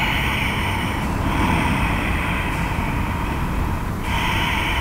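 A woman's slow, deep breathing close to the microphone: long airy breaths that swell and fade, one ending about a second in and the next starting about four seconds in, over a steady low hum.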